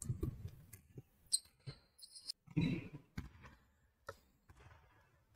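Faint indoor basketball court sounds: sneakers squeaking briefly on the gym floor, twice, among scattered short thuds of footsteps and ball bounces.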